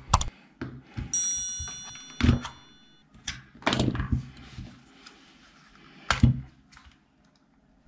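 Plastic housing of a cordless screwdriver being handled and pried apart by hand: a series of separate clicks and knocks. About a second in comes a brief metallic ring that fades out.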